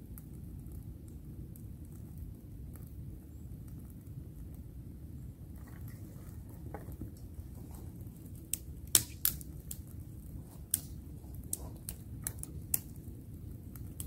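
A small, newly caught campfire of twigs and kindling crackling, with a run of sharp snaps and pops during the second half, the loudest just past the middle, over a low steady rumble.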